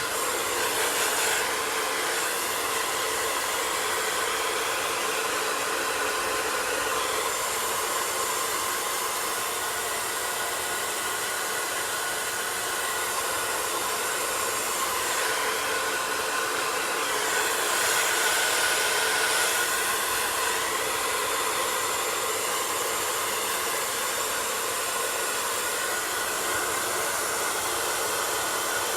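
Handheld blow dryer running on its cool setting to set the lace glue, a steady hiss of air. It swells a little about a second in and again for a few seconds past the middle.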